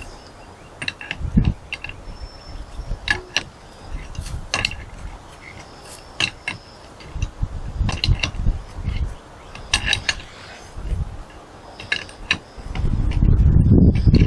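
Steel clicks and clanks of a pipe wrench working the nut of a helical pile's foundation bracket, tightening it to lift the foundation. A louder low rumbling noise comes in near the end.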